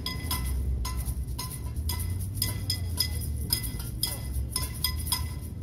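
Metal struck over and over, about two ringing clangs a second, as marching protesters ring bells and beat on pots, over a steady low rumble.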